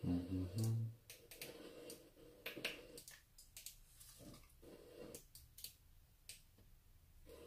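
Paper bag of flour crinkling and rustling as flour is poured into a glass bowl, with scattered light clicks and taps. A brief low hum comes right at the start.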